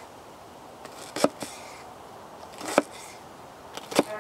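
Knife slicing an onion on a wooden cutting board: three sharp knocks of the blade striking the board, a little over a second apart.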